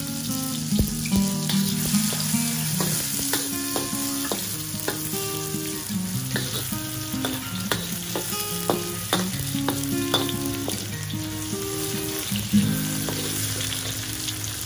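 Minced garlic and shallots sizzling in hot oil in a wok, with a metal spatula scraping and tapping the pan as they are stirred.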